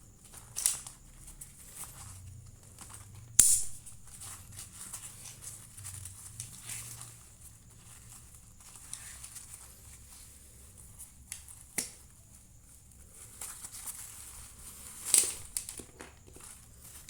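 A waist bag being handled: rustling and crinkling with scattered sharp clicks, the loudest about three and a half seconds in, another near twelve seconds and a louder one near the end.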